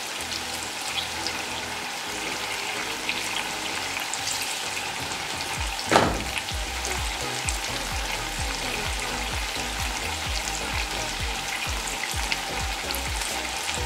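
Marinated chicken frying in hot oil in a pan, sizzling and crackling steadily as it is stirred. About six seconds in there is one brief, louder burst.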